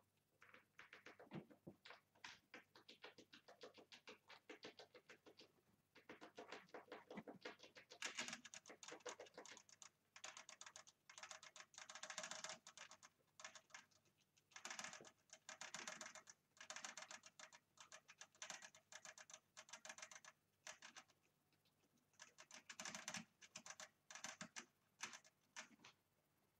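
Pet rats scrabbling about a plastic cage with wood-shaving bedding: faint bursts of rapid clicking and scratching, each lasting a second or two, with short pauses between them.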